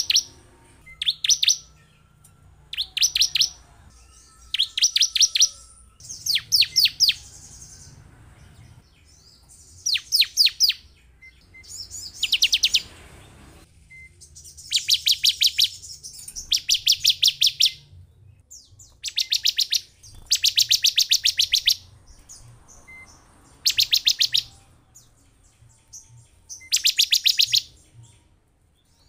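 Ciblek (prinia) song: repeated bursts of rapid, high, falling chirps, each burst about a second long, coming roughly every two seconds.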